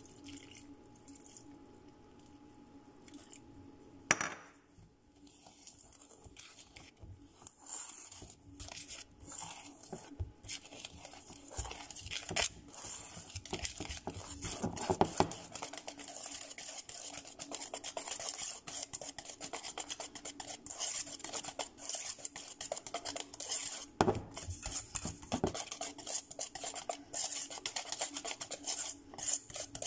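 Wire whisk beating pancake batter in a metal mixing bowl: a fast, steady clatter of the whisk against the bowl, setting in about twelve seconds in. Before that come a few separate clinks and one sharp knock.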